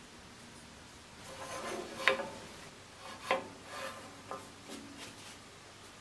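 A small wooden block being handled, rubbing and scraping, with three sharp knocks about two, three and a quarter, and four and a third seconds in.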